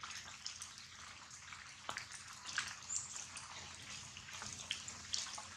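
Faint outdoor background hiss with many small, irregular ticks and taps scattered through it.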